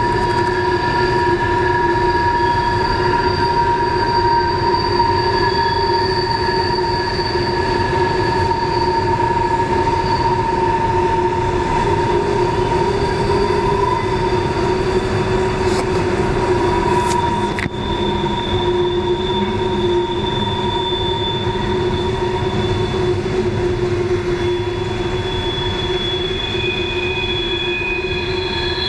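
Freight train wheels squealing against the rails as the cars grind around a tight curve: several steady high tones that waver slightly, over the low rumble of the rolling train.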